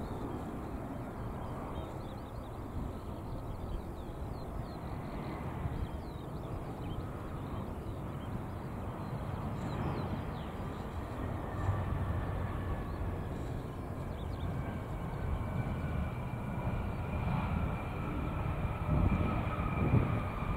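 Embraer E175 airliner landing: steady jet engine noise under a low rumble, with a turbofan whine rising out of it about halfway through and slowly falling in pitch as the jet rolls out after touchdown. The low rumble grows louder near the end.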